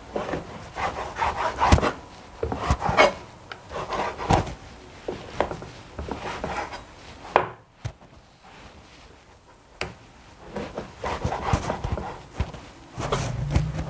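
Cleaver cutting raw chicken into cubes on a wooden cutting board: the blade knocks on the board at an uneven pace, with a short pause a little past the middle.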